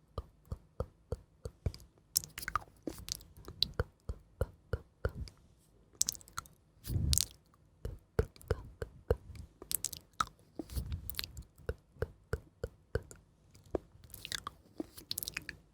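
Close-miked ASMR chewing and mouth sounds: irregular wet clicks and smacks, a few a second, with a couple of fuller, heavier bites midway.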